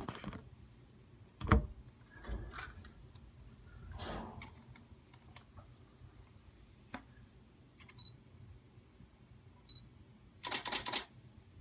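Digital camera's shutter clicking: one sharp click about a second and a half in, then a quick run of clicks near the end. Short, faint, high beeps come in between, and there is some soft handling rustle around four seconds.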